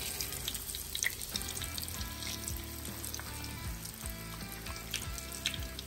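Flour-coated bass sizzling steadily as it shallow-fries in hot peanut oil, with background music over it.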